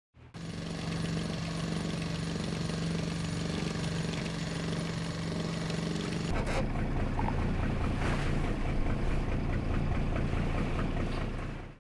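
Motorboat engine running at a steady pitch under a hiss of wind and water; a little over six seconds in the sound turns rougher, with more low rumble.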